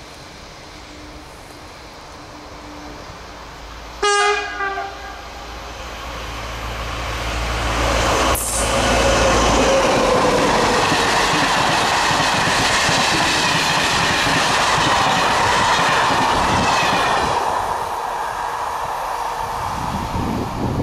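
SNCF BB 22200 electric locomotive sounding a short horn blast about four seconds in, then passing with its train of coaches: the rolling noise builds, stays loud for several seconds and fades away near the end.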